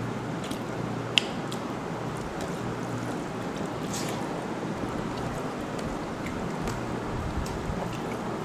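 A meal of rice and fish curry being eaten by hand: soft, wet mixing sounds and scattered small clicks, with one sharp click about a second in, over steady background noise and hum.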